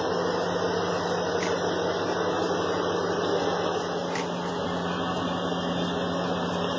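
Steady background hiss with a low, even hum.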